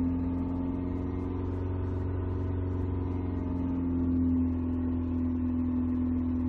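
Car engine running steadily while being warmed up, with a slight swell in level about four seconds in.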